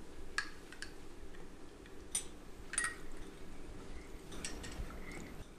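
A teaspoon and china teacups on a tray clinking lightly, a handful of separate sharp clinks spread over several seconds.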